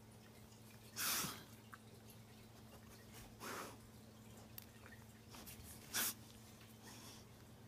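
Golden retriever blowing short breaths out through its nose, three times: the first, about a second in, is the loudest, and the last is brief and sharp. A faint steady low hum lies underneath.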